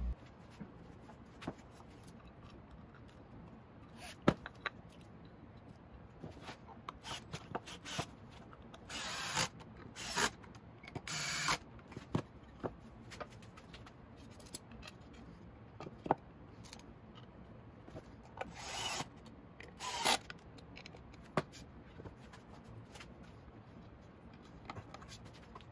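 Small handheld cordless screwdriver driving screws into wood in a few short runs of about a second, with sharp clicks and knocks of screws and wooden parts being handled on the bench.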